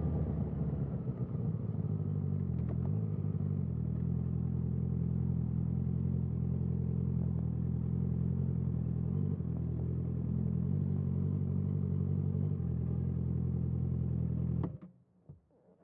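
Honda CBR650R inline-four engine with an Akrapovic exhaust, running at a steady low speed after settling in the first few seconds. It cuts off near the end, followed by a couple of faint knocks.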